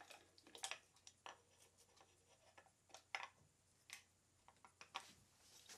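A handful of faint clicks and taps from hands handling a machined-aluminium pan/tilt motion-control head and its snap-in motor, the loudest about three seconds in.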